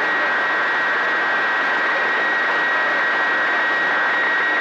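CB radio receiver on channel 28 (27.285 MHz) giving out a steady rush of band static between transmissions, with a thin, steady, high whistle running through it.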